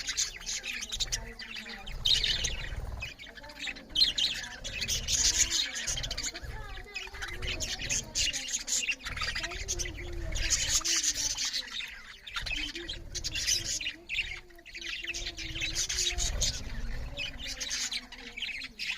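Budgerigars chirping and chattering loudly, a constant dense run of high chirps and warbles broken by short squawks.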